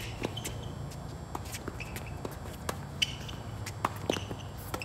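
Tennis rally on a hard court: a string of sharp racket-on-ball hits and ball bounces, the sharpest about three seconds in, over a low steady hum.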